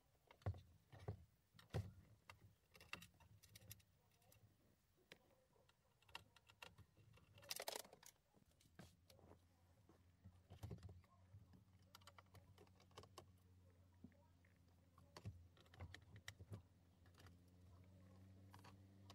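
Scattered faint clicks and taps of hands working a car stereo head unit and its dashboard trim, with a short rustling scrape about eight seconds in. A low steady hum grows near the end.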